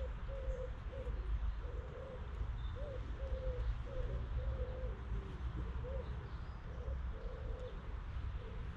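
A pigeon cooing: a run of short, low hooting notes repeated about once or twice a second, over a steady low rumble.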